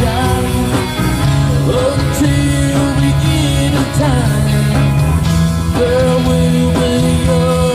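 Live rock music with electric guitar and a singing voice, loud and steady.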